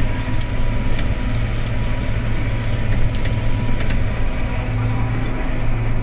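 Old tractor's engine running at steady revs, heard from inside the cab, with a few light clicks or rattles.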